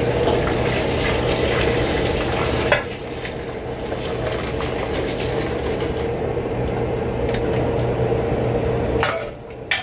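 Boiling water poured from a saucepan over raw chicken pieces in a metal pot, scalding the meat: a steady splashing hiss that eases a little about three seconds in and stops near the end.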